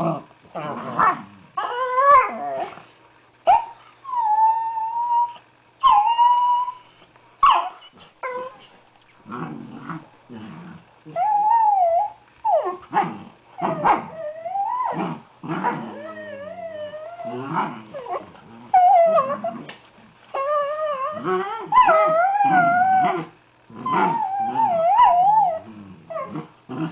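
Two dachshunds making play noises together: warbling, wavering howls and whines mixed with short growls and grunts, in quick irregular bursts.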